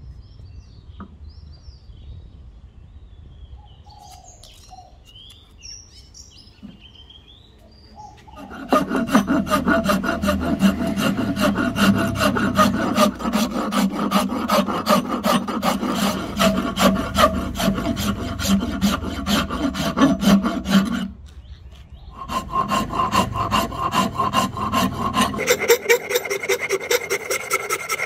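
Faint bird chirps, then from about nine seconds in a tool rasping rapidly and evenly on the ebony wood of an axe handle as it is shaped. The rasping stops briefly about 21 seconds in, resumes, and shifts to a higher pitch near the end.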